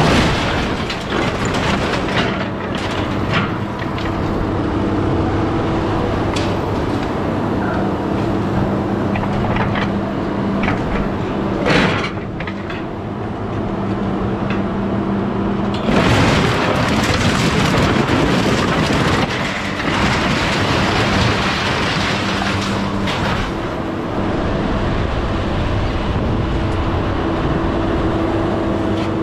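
A heavy machine's engine running, its pitch stepping up and down now and then, with scrap metal clattering and knocking as it is loaded. A louder, noisier stretch lasts several seconds past the middle.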